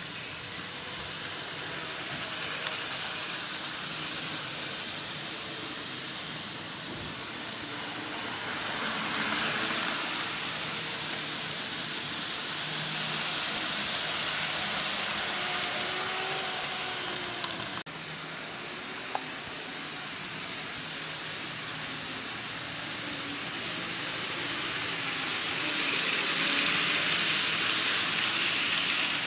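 N-gauge model electric trains running on the track: a steady rolling hiss and rattle of wheels with a faint motor whine. It grows louder twice as trains pass close. There is a single sharp click partway through.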